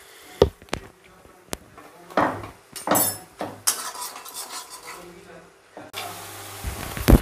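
Slotted metal spatula scraping and tapping against a frying pan while stirring a thick masala paste, with a faint sizzle underneath. There are a few sharp taps and scrapes, and one loud knock near the end.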